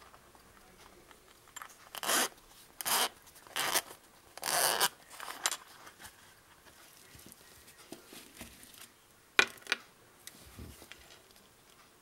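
Zipper of a small round zippered earphone case being pulled open in four short rasping strokes, then a single sharp click a few seconds later.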